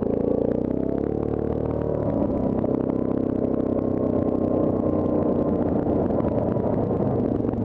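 Yamaha Grizzly ATV engine running as the quad rides along a dirt trail. The engine note shifts over the first two seconds, then holds steady, with light rattling throughout.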